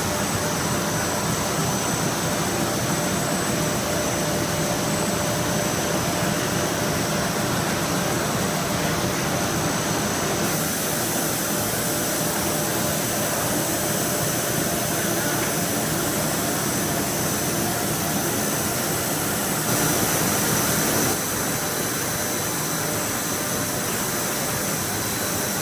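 Automatic PE plastic bag cutting machine running: a steady machine hum and hiss with thin, steady high whines. It grows briefly louder about twenty seconds in.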